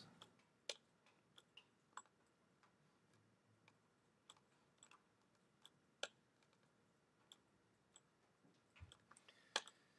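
Computer mouse and keyboard clicks: single short, sharp clicks at irregular intervals, about one a second, with quiet room tone between them.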